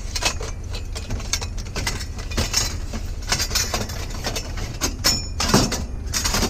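Scrap metal pieces clinking and rattling as they are handled, over a steady low engine hum.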